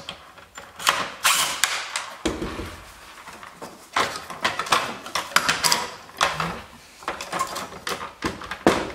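Cordless power driver running in several short bursts as it backs out small screws from a plastic headlight housing, with plastic knocks and rattles between the runs.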